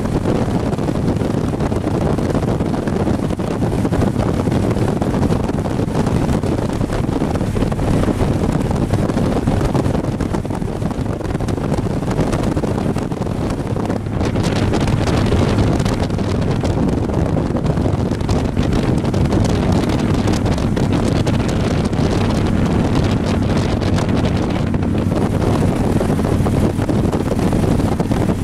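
Touring motorcycle cruising at road speed: heavy wind buffeting on the microphone over the engine's steady low running.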